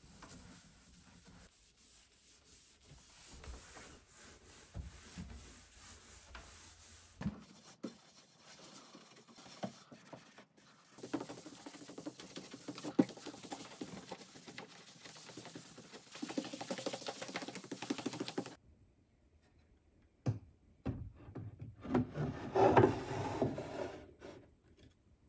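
A cloth rubbed back and forth over a wooden cabinet top, wiping on wood stain, in several separate stretches. Near the end come a few knocks and a louder stretch of wood rubbing on wood as a wooden wine-rack insert is slid into the cabinet.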